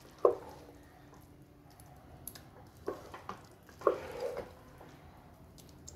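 A spoon stirring soft, ghee-laced dal khichdi in a pan: a few soft wet squelches and light knocks at irregular moments, the loudest near the start and about four seconds in.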